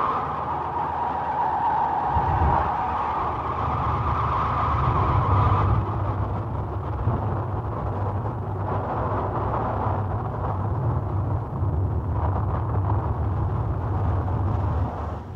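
Experimental noise piece from a cassette sound-art compilation: a dense, steady rushing noise. A deep low rumble comes in about two seconds in. The brighter upper rushing thins out about six seconds in, leaving mostly rumble with a coarser noise above it.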